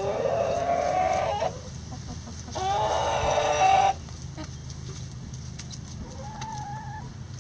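Chickens calling: two loud, drawn-out calls about a second apart, then softer short clucks near the end.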